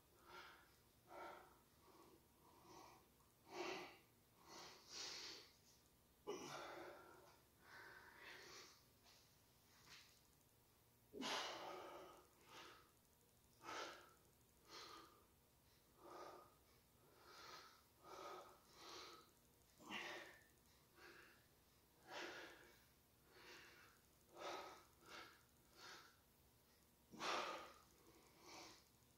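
A man breathing hard through a set of dumbbell exercises: faint short breaths about once a second, with a few longer, heavier breaths.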